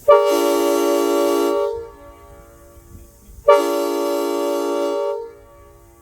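Air-powered train horn blown twice, each blast about a second and a half long, several steady notes sounding together as a chord. Pretty loud.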